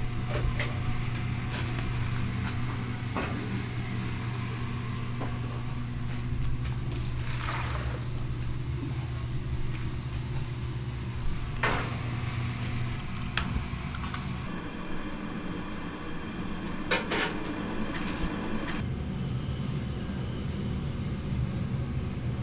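Kitchen work sounds: scattered clinks and knocks of a rice paddle and a plastic bowl against steel rice cookers and pans over a steady low hum. The hum drops out for a few seconds past the middle.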